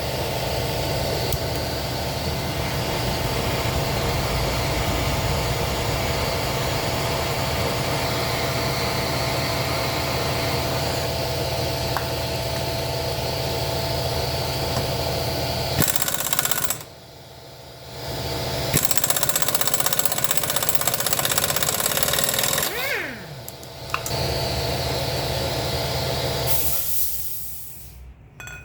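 Pneumatic impact wrench hammering on a CVT clutch pulley nut that is seized tight with threadlocker. It runs in long bursts, stopping for about two seconds near the middle and once more briefly later on, then dies away near the end.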